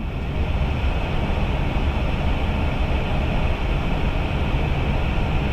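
Steady rush of air and low rumble on an Airbus A320 flight deck during short final approach.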